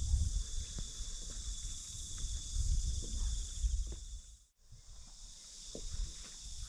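Steady outdoor insect chorus, a continuous high shrill with a thin whistling tone, over a low irregular rumble. The sound drops out briefly about four and a half seconds in, then resumes.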